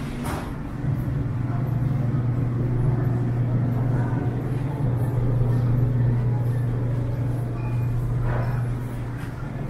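Steady low hum of supermarket refrigerated display coolers, growing a little louder about a second in.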